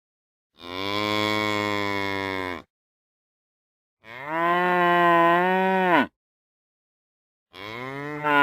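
Cows mooing: three long moos of about two seconds each, with dead silence between them. The first two fall in pitch at the end, and the last one starts near the end.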